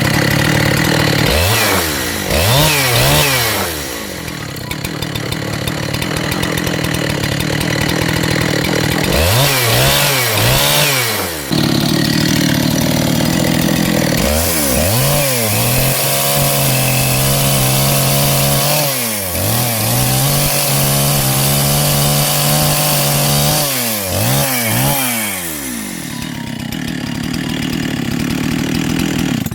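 Husqvarna 372XP chainsaw's two-stroke engine running and being revved up and down repeatedly, with quick throttle blips several times that rise and fall in pitch, and steadier running between them.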